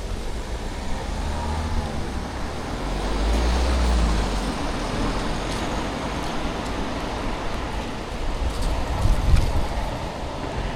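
Steady rumble of road traffic, swelling about three seconds in as a vehicle passes, and again near the end.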